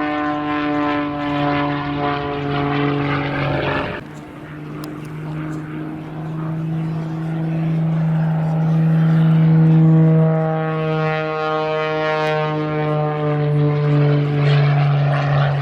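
Propeller airplane engine droning with a steady pitch. The sound breaks off abruptly about four seconds in, then swells to its loudest near the middle before easing slightly.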